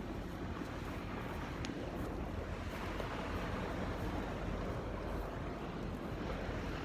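Steady rushing outdoor noise, wind on the phone's microphone, with a low rumble underneath.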